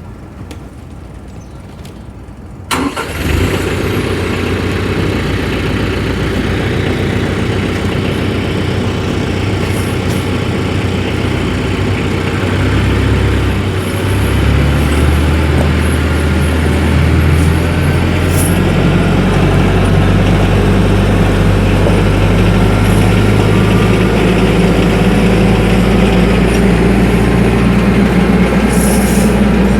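TYM 474 compact tractor's diesel engine starting up about three seconds in, then running steadily, its note changing a few times in the middle before settling.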